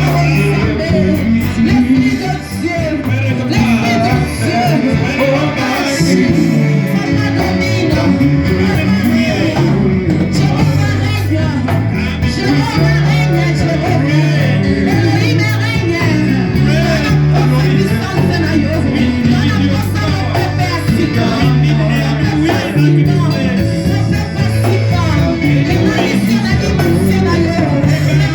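Church worship music: a live band plays a steady, upbeat groove with a strong bass line, with singing over it.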